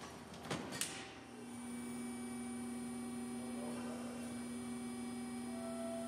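A couple of short knocks, then from about a second in The Shop Dog drive unit runs with a steady machine hum on a clear low tone.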